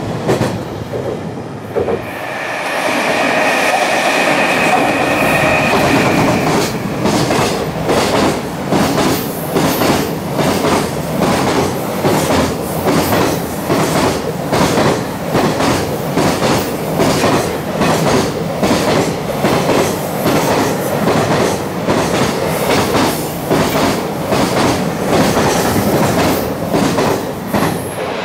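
A long JR Freight container train passes at speed, its wheels clacking over rail joints in a steady, regular rhythm. For a few seconds near the start, a high, steady whine sounds over the rolling noise.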